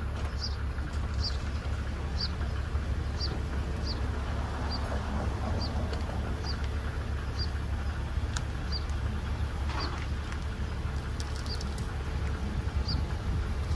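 BMW Z4 3.0si's straight-six engine idling steadily, while a small bird repeats a short high chirp about once a second.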